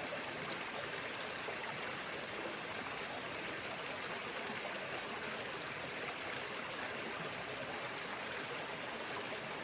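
Steady rush of flowing water, as of a stream running over rocks, even and unbroken throughout.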